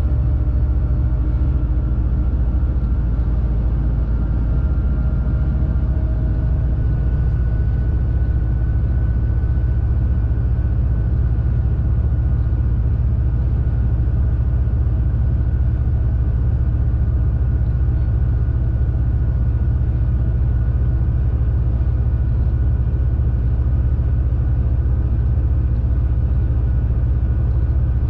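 Shacman X3000 heavy truck's diesel engine running steadily at cruise, heard from inside the cab as a loud, even low rumble with road noise, and a faint high whine above it.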